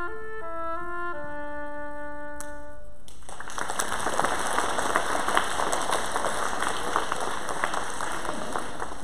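Solo oboe playing a short melody of changing notes and ending on a held note. About three seconds in the audience breaks into applause, which carries on to near the end.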